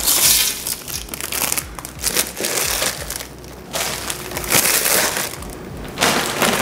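Foil snack bags crinkling and crackling in several bursts as cheese crisps are shaken out of them into a stainless steel pot and the empty bags are crumpled.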